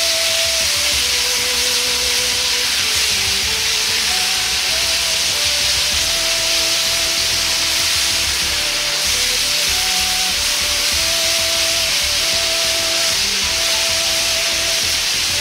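Thin slices of pork belly sizzling steadily in a Chinese wok over high heat, searing without the pan being lifted or tossed. A soft melody of held notes plays under it.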